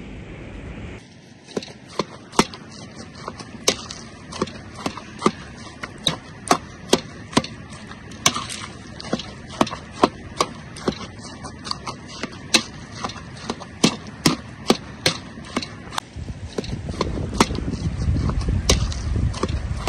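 Repeated sharp chopping strokes, irregular, about two a second, stopping about three seconds before the end. A low rumbling noise builds in the last few seconds and is the loudest sound there.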